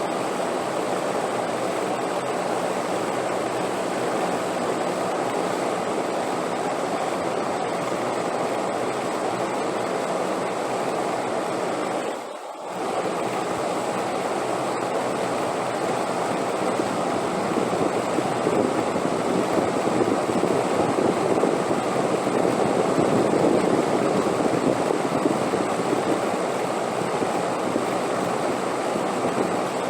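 Steady rushing wind, an even noise that dips for a moment about twelve seconds in and swells a little louder in the second half.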